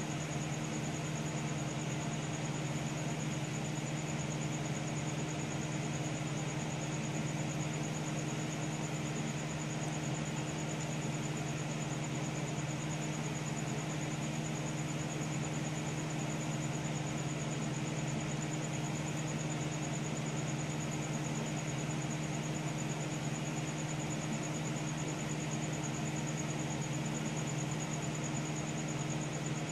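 Steady whir of a desktop computer's fans with a low hum and a faint high-pitched whine, unchanging as the PC boots.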